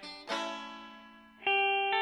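Background music on guitar: a chord struck shortly in and fading, then a louder chord about one and a half seconds in that rings on.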